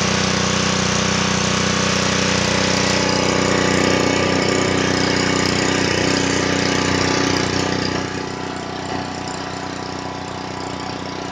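Honda GCV160 single-cylinder overhead-cam engine on a Ryobi 3000 PSI pressure washer running steadily just after being pull-started. It is quieter from about eight seconds in.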